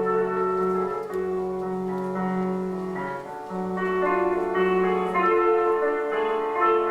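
Instrumental ballet music: slow, held chords with a keyboard sound, changing every second or so.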